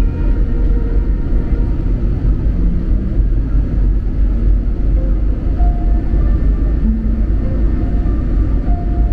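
Airliner passenger cabin noise: a steady, loud low rumble of jet engines and rushing airflow, heard from inside the cabin.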